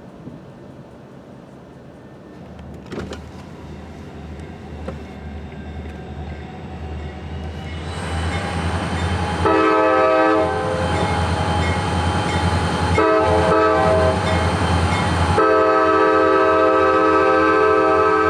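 A pair of CSX SD40-2 diesel locomotives: the rumble of their EMD 16-cylinder two-stroke diesels grows louder as they come close. About halfway through the horn starts, a chord of several notes blown in long blasts with brief breaks, and it is still sounding at the end.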